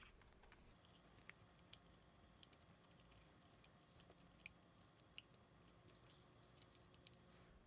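Faint, irregular small clicks and taps of a small circuit board and the camera's plastic and metal parts being handled and pressed into place inside the camera body.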